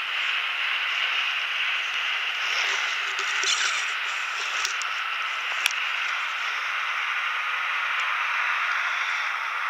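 Snowmobile on the move, heard as a steady rushing hiss with little low rumble, and a sharp click about five and a half seconds in.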